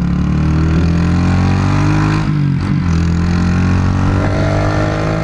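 Honda CG Titan 150's single-cylinder four-stroke engine running under way, heard from the rider's helmet over wind and road rush. Its pitch dips and breaks briefly a little over two seconds in, then it carries on steadily.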